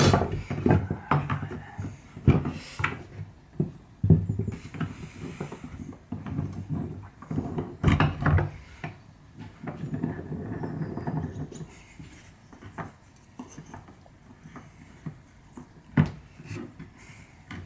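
Wooden frame parts for pallet-wood cabinet doors being handled and fitted together during a glue-up: irregular knocks and clicks of wood on wood and on the bench, with a couple of short stretches of rubbing. A sharp knock stands out near the end.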